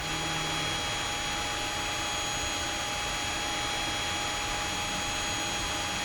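Creality Ender 5 3D printer running: a steady hiss from its fans with several constant high-pitched whining tones.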